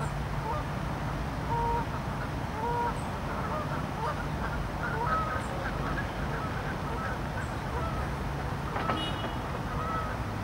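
Waterfowl calling on the lake: a scatter of short honking calls, several overlapping, with a steady low hum underneath.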